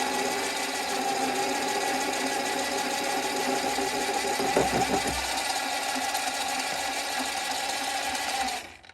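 Mini lathe running with a steady whine while a parting tool cuts off the workpiece. There is a brief rougher patch a little after halfway, and the lathe stops just before the end.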